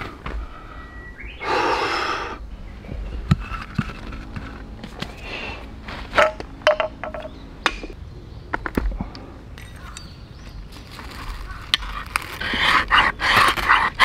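Scattered knocks and clicks from wood being handled, then near the end a run of rasping scrapes as a ferrocerium fire-starter rod is struck toward a feather stick to light it directly.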